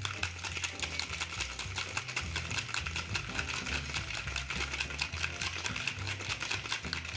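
Ice cubes rattling hard inside a metal cocktail shaker as it is shaken vigorously, a fast, even rattle of several strokes a second that keeps up throughout.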